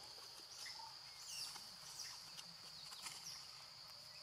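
Faint outdoor insect drone, a steady high-pitched buzz, with several short high chirps in the first three seconds and a few soft clicks.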